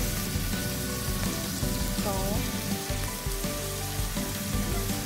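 Shrimp frying in hot oil and chili paste in a wok, a steady sizzle, with background music playing.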